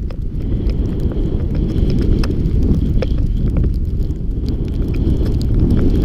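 Snowboard sliding over snow with wind buffeting the camera's microphone: a heavy, steady low rumble, with scattered sharp ticks.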